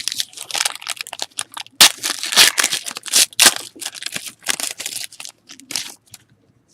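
Foil trading-card pack wrapper crinkling and tearing in the hands as it is opened, a dense crackle that stops about six seconds in.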